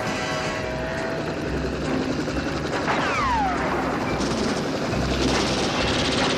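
Helicopter rotor and engine noise, running steadily, with a falling whistle about three seconds in.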